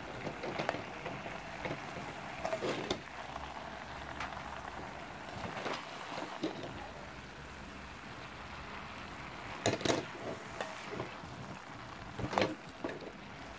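Cabbage steaming and sizzling in a pan, with a spoon stirring through it and scraping and knocking against the pan a handful of times. The loudest knocks come about ten seconds in and again just past twelve seconds.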